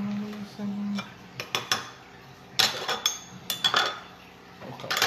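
Metal utensils and dishes clinking and knocking on a countertop: three clusters of sharp clinks, the loudest in the middle, after a short low hum in the first second.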